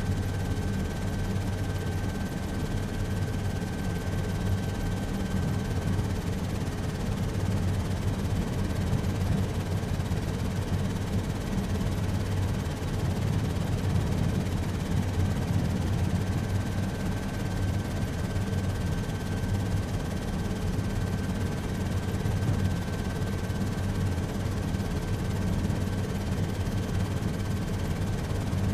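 Helicopter running steadily: a constant low drone from rotor and engine, with a thin high whine above it that fades out for a while and comes back about halfway through.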